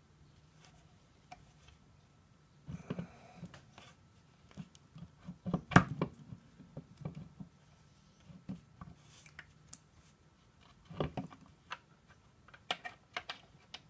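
Light metallic clicks and scrapes of a magnet tool and a small steel E-clip being worked into place on a 42RE transmission valve body, with a sharp click about six seconds in and a few more clicks near the end.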